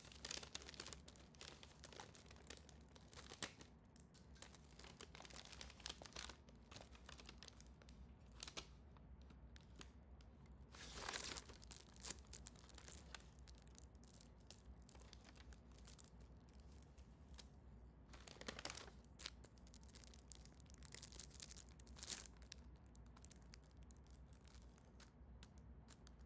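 Gift wrapping being torn and crinkled as a present is unwrapped: faint, scattered short bursts of rustling and tearing, the loudest about eleven seconds in.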